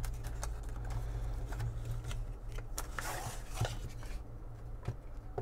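Cardboard perfume packaging being handled: light rustling and small clicks, with a longer scraping rub about three seconds in as the bottle is drawn out of its black inner box.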